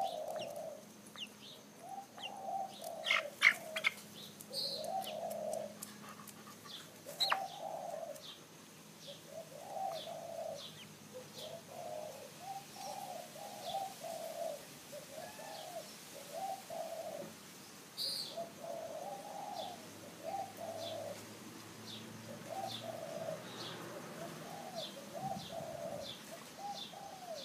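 Birds cooing softly: short, low, warbling calls repeated every second or so, with faint high chirps of small birds and a few sharp clicks.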